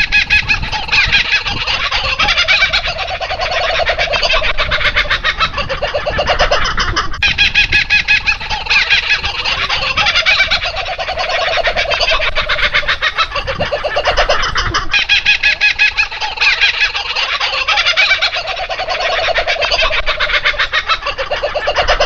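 Young birds calling in a dense, rapid chatter of high cheeps. It is a looped sound clip that repeats about every seven and a half seconds.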